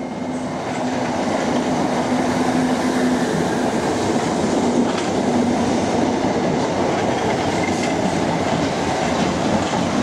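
Electric multiple-unit passenger train running on the track, a steady rumble of wheels on rail that swells over the first second or two, with a few clicks from the wheels over rail joints.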